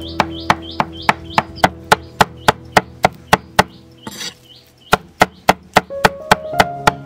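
Cleaver chopping raw pork into mince on a thick wooden chopping block: steady, even strikes about three a second. The strikes stop for about a second just past the middle, then resume.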